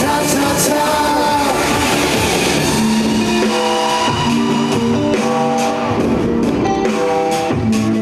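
Live trot band music played through a concert sound system: a sung line in the first couple of seconds, then the band carries on with strummed guitar chords and drums in a steady rhythm.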